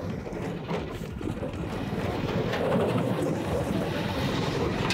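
Small air-cooled engine of a homemade ATV with metal-drum wheels and chain drive running with a rough rumble, getting louder about two seconds in as it is pushed for momentum up a snowy slope.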